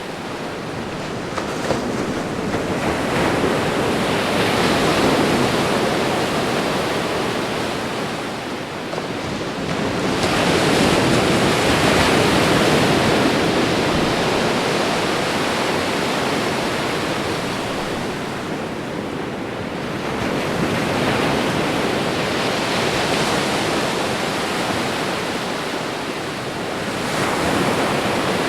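Ocean waves washing onto a shore: a steady hiss of surf that swells and ebbs, a wave surging in about every eight to ten seconds.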